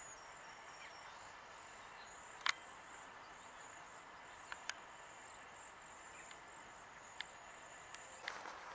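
Steady, high-pitched insect trill over faint outdoor ambience, broken by a few sharp clicks, the loudest about two and a half seconds in.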